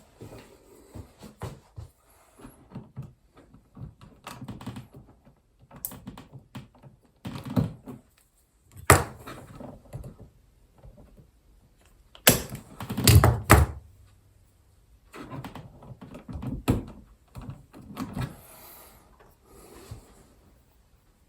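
Hand work on wire connections in a switch box: scattered rustling and small clicks, a sharp knock about nine seconds in, and a cluster of louder knocks between about twelve and fourteen seconds.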